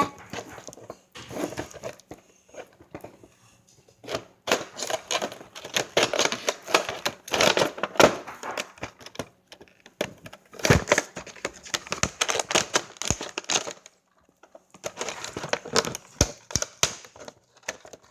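Packaging being handled and torn open: irregular bursts of crinkling, crackling and tearing, with short pauses about three seconds in and again near the end.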